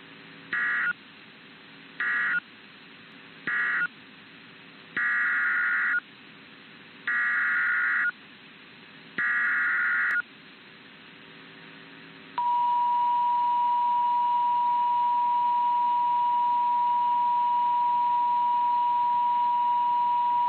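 NOAA Weather Radio alert signalling: three short bursts of buzzy digital SAME data, which likely close the previous message, then three longer one-second SAME header bursts announcing a new warning. About twelve seconds in, the steady 1050 Hz warning alarm tone starts and holds, marking the start of a severe thunderstorm warning broadcast.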